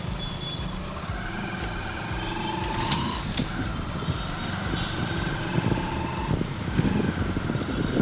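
Light street traffic: motorcycle and other vehicle engines running past on an open road, a steady low rumble with a few faint, thin tones over it.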